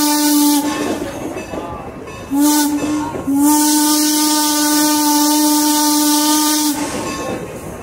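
Steam whistle of Norfolk & Western 4-8-0 locomotive #475 blowing with a hiss of steam: a blast that ends about half a second in, a short toot, then a long blast of about three and a half seconds. The long-short-long ending is the close of the standard grade-crossing signal.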